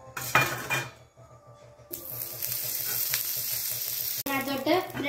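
Butter sizzling in a hot oiled frying pan: a steady hiss that starts about two seconds in and cuts off suddenly a couple of seconds later. A short loud burst comes about half a second in.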